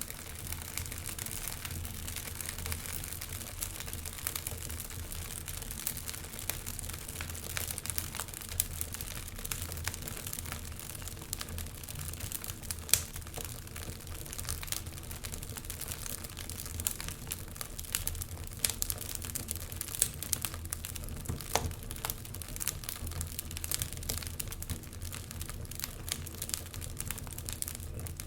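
Wood fire crackling in a stone fireplace, with frequent small pops and a sharper pop about 13 seconds in, over a steady low rumble.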